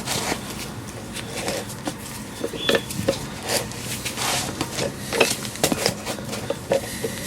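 Bolt of a hub puller being wound round with a spanner to draw an MGA 1600 front hub off its stub axle: irregular metal clicks, knocks and scrapes as the tool works.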